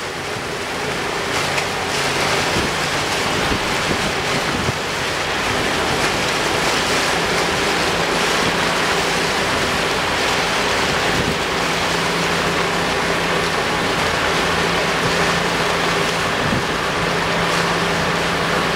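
Water rushing and splashing along the side of an inflatable containment boom as it moves through the sea, over the steady hum of a boat engine.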